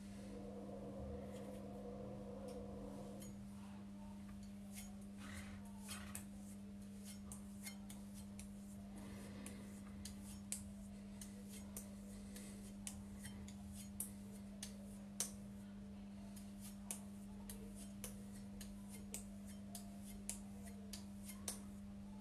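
Faint, irregular small metallic clicks and ticks of a straight razor being handled and turned in the fingers, over a steady low hum.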